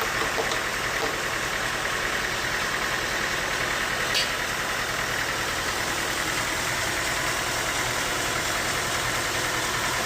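Bandsaw sawmill machinery running steadily, a low engine hum under a constant high whine, with a single sharp click about four seconds in.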